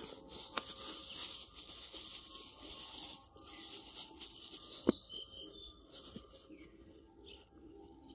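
Close rustling and rubbing noise that stops abruptly about three seconds in, then a single sharp tap about five seconds in, with a few faint bird chirps.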